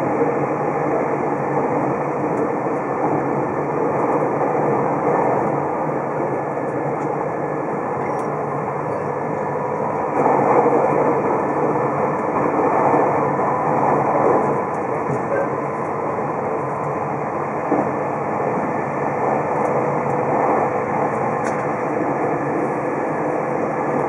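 Steady running noise of the Super Kamui electric limited express heard from inside the passenger cabin at speed: wheels on rail and motor noise, a little louder for a few seconds about ten seconds in.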